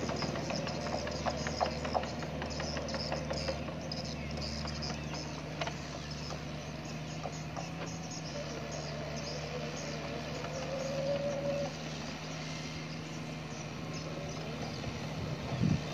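Bobcat E45 mini excavator's diesel engine running steadily as it works a flooded rice paddy. There is a rattle of clicks and clanks in the first few seconds and a brief higher whine about eight to eleven seconds in.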